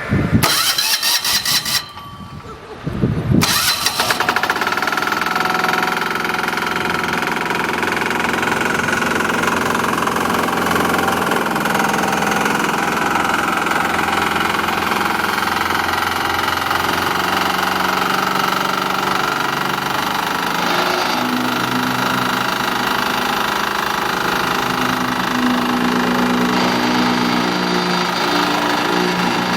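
Engine of a walk-behind double-drum vibratory road roller starting, with two short loud bursts in the first four seconds, then running steadily.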